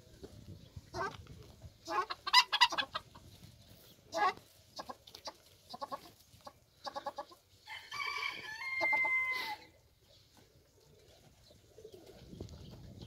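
Chickens clucking in short repeated calls, loudest about two to three seconds in, then a rooster crowing once about eight seconds in.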